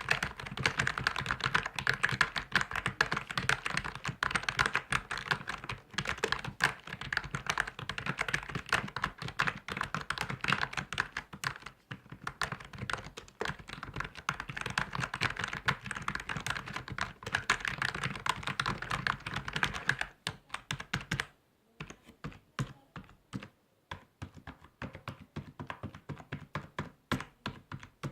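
Computer keyboard typing: fast, continuous keystroke clicks that thin out after about 20 seconds into slower, separate keystrokes with short pauses between them.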